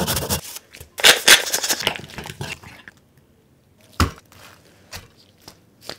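Close-miked kitchen handling noises: crackly rustling through the first two seconds, then one sharp knock about four seconds in as a black slate serving board is set down on a wooden counter, followed by a few light taps.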